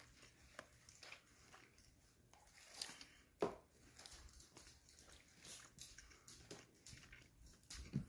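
Faint chewing of a bite of crispy fried chicken topped with pepperoni, cheese and marinara, with soft mouth clicks scattered throughout and one sharper click about three and a half seconds in.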